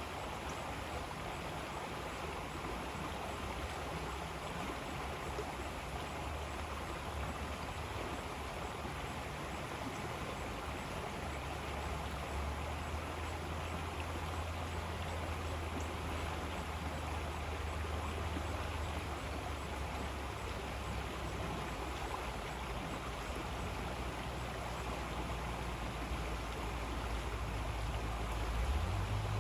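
River water flowing steadily, a continuous rushing sound with a low rumble underneath.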